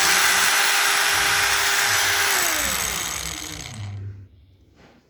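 Cordless 18 V angle grinder running at a steady pitch with a high whine, then switched off and winding down, fading out about four seconds in. It is powered by a faulty battery that puts out only about 12 V, so the grinder runs at low RPM.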